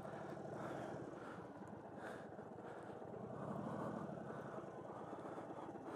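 Faint motorcycle engine running at low speed through a tight turn, swelling slightly twice as the throttle is worked.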